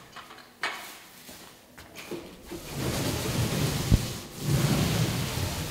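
A few light knocks, then a rumbling, rustling noise that swells, with one sharp thump about four seconds in.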